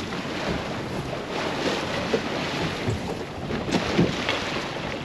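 Wind buffeting the microphone over sea water sloshing around a small boat, with a couple of faint knocks near the end.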